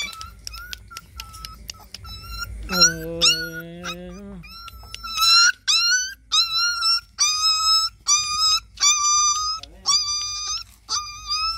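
A puppy crying over and over in short high-pitched whimpers, about two a second, each rising at its start, after being bitten by a bigger dog. About three seconds in there is one longer, lower drawn-out cry.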